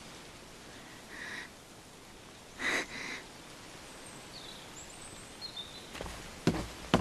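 Quiet outdoor ambience with a few short bird calls. Near the end come several sharp knocks.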